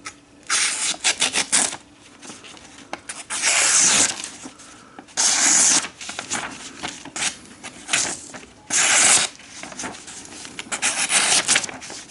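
Kitchen knife blade drawn in repeated scraping strokes, each lasting about half a second to a second, with quick crackly ticks between them.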